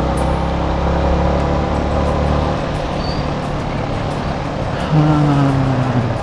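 Motorcycle riding through wet city traffic, heard from a mic inside the rider's helmet. A steady low engine hum fades after about two and a half seconds into a wash of wind, road and traffic noise. About five seconds in there is a brief low tone that falls slightly.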